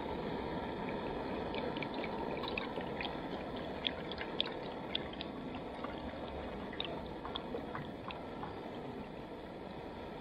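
Water poured from a bottle into a small metal camp cup: a steady pour with small glugs and splashes scattered through it, easing off slightly towards the end.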